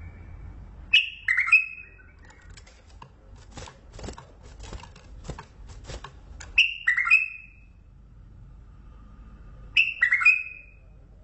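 Mandalawi bulbul singing three short, loud phrases of quick, falling notes, spaced a few seconds apart. A run of faint clicks falls between the first two phrases.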